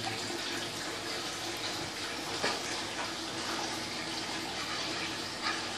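Steady rush and trickle of aquarium water circulating and bubbling, with a couple of small taps.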